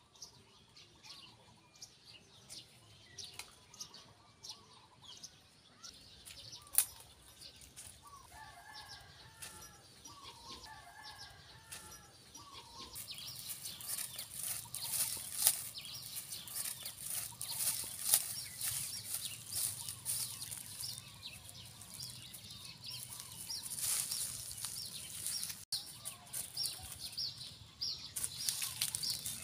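Mango-tree leaves and twigs rustling and snapping, with birds chirping in short bursts. About halfway in, a louder crackling rustle of bare feet walking through dry grass and straw takes over.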